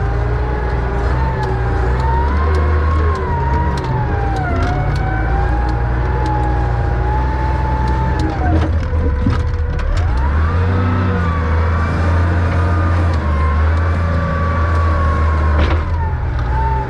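Diesel loader working hard: a deep engine rumble with a whine that rises and falls with the load, dipping briefly about halfway through and then climbing back, and scattered knocks.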